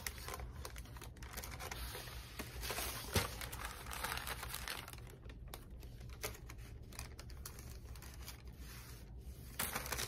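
A sheet of paper rustling and crinkling as it is handled and lifted, with scattered small clicks and one sharp tap about three seconds in.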